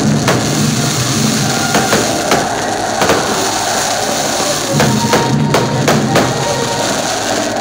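Aerial fireworks bursting overhead: a string of sharp, irregular cracks and pops over a steady din, with music also playing.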